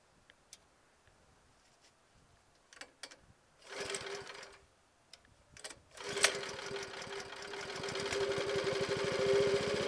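Honda-type single-cylinder petrol engine on a saw bench pull-started with its recoil cord: a few small clicks, a first pull about four seconds in that runs it for only a moment, then a second pull about six seconds in that catches, and the engine runs steadily, growing louder.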